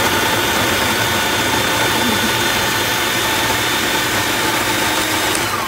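A countertop food processor running at a steady pitch, its blade chopping vegetables in the bowl. It cuts off suddenly near the end.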